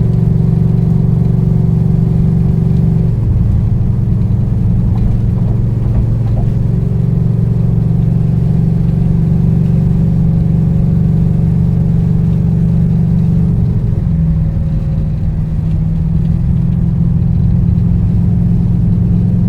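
Heard from inside the cabin of a 1970 Chevelle, its high-horsepower V8 drones loud and steady while cruising. The engine note drops in pitch about three seconds in and changes again around fourteen seconds.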